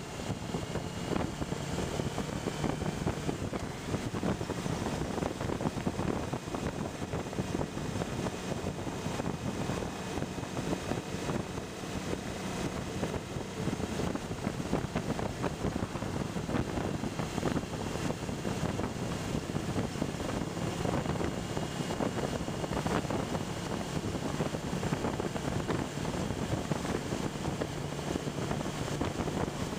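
Suzuki V-Strom motorcycle running steadily at road speed, its engine hum buried in heavy wind noise buffeting the bike-mounted camera's microphone.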